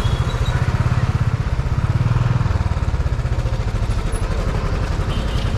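Motorcycle engine running at low speed with an even pulsing beat as the bike rolls slowly and pulls in to park, easing a little after about two and a half seconds.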